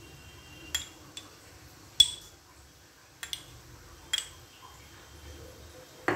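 A spoon clinking against dishes about half a dozen times while chutney is scooped from a small bowl and drizzled out: sharp ticks with a short ring, the loudest about two seconds in.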